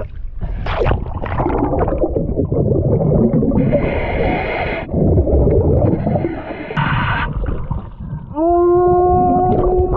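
Underwater sound of a scuba diver breathing: rumbling, gurgling exhaled bubbles and two short hissing inhales through the regulator. About eight seconds in, a long pitched wail with several overtones starts, rising briefly and then holding steady.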